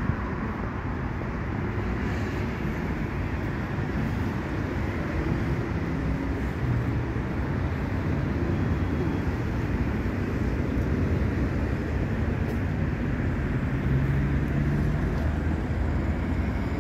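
Steady low rumble of city road traffic, with the hum of vehicle engines coming and going.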